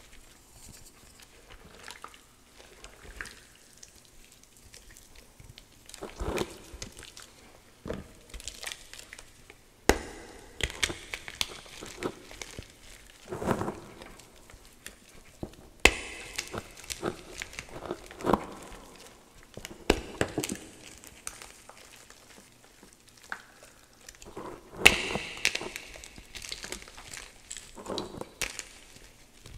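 Hand crushing and squeezing damp gym chalk, mixed with water and fabric softener, in a bowl: crunching and crackling in irregular bursts with sharp clicks, broken by quieter pauses.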